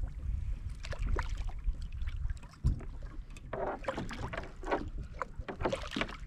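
Wind rumbling on the microphone and water lapping at a kayak, with scattered knocks; about three and a half seconds in comes a busier flurry of knocks and splashing as a hooked sail catfish is brought alongside.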